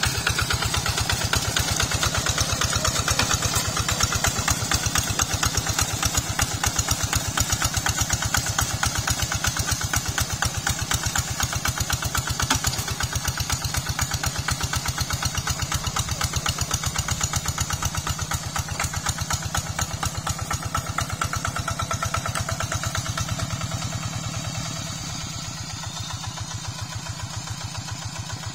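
Single-cylinder diesel engine of a two-wheel walking tractor running steadily under load, with a fast, even chugging as it drags its cage wheels through flooded paddy mud. It gets a little quieter near the end.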